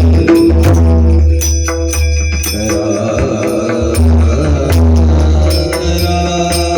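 Indian devotional music: pakhawaj drumming with fast strokes and a deep bass, accompanying chant-like singing.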